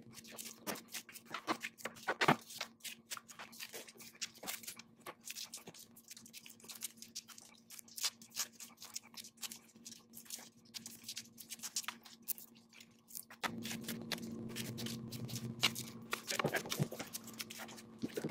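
Gloved hands handling and taping a flat spiral copper pancake coil: a dense, irregular run of small clicks, taps and rustles, over a steady low hum that grows louder about two-thirds of the way through.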